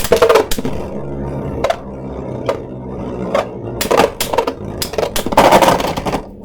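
3D-printed Beyblade Burst tops spinning in a plastic stadium with a steady whirr, clacking against each other in a string of sharp hits that come thick and fast near the end.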